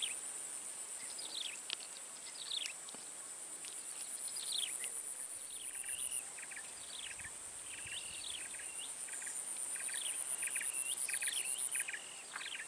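Swamp ambience: an insect keeps up a steady, high-pitched pulsing trill that breaks off briefly about six seconds in and again near the end, while birds call repeatedly with short falling whistled notes.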